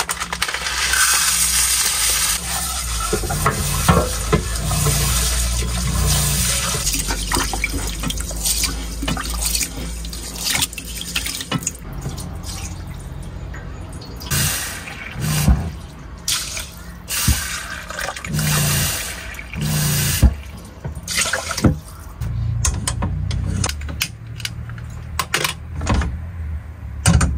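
Water running from a tap into a small pot at a campervan's sink as rice is washed. It runs steadily for about the first ten seconds, then comes in shorter splashes with knocks of the pot.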